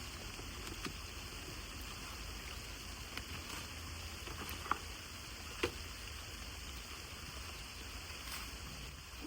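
Steady rain falling, a soft even hiss, with scattered drops tapping; two slightly sharper taps come about halfway through.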